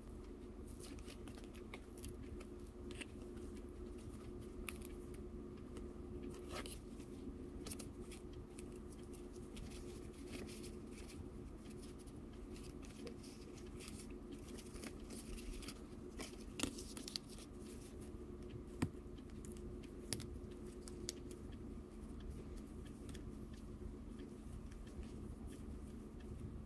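Paper rustling and crinkling as hands handle a kraft paper envelope, paper inserts and a pile of die-cut paper stickers. Scattered small ticks and taps sound over a faint steady hum.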